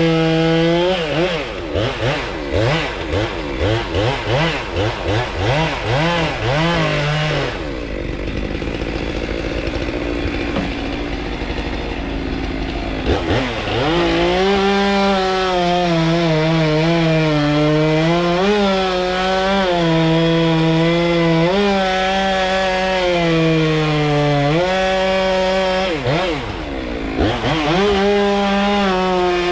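Stihl two-stroke chainsaw revved in quick repeated blips, then settling to a lower run for a few seconds before being held at high revs. The pitch sags and recovers as the chain bites into wood, with one brief drop and rev-up near the end.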